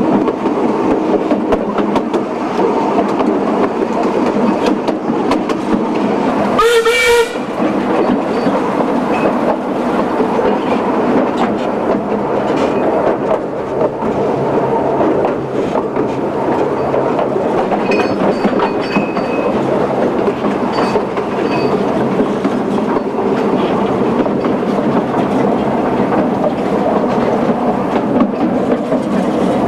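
Narrow-gauge steam train running, with a steady rumble and clatter heard from aboard. About seven seconds in, the locomotive gives one short blast on its steam whistle.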